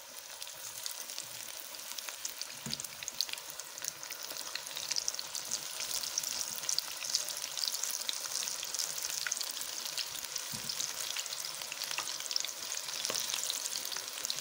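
Spinach pakora batter deep-frying in hot oil: a steady sizzle thick with small crackles, growing louder over the first few seconds as more spoonfuls of batter go into the oil.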